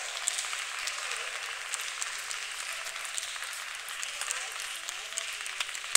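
Spectators applauding in a large hall: an even clapping noise with faint voices and a few light sharp clicks scattered through it.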